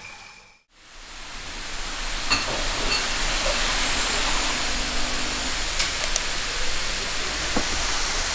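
Steady rushing of a waterfall, fading in after a brief moment of near silence about half a second in.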